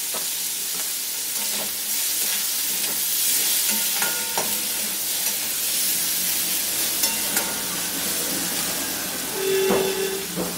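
Onion and teasel gourd filling frying in oil in a kadai with a steady sizzle, while a spatula stirs it, clicking and scraping against the pan now and then.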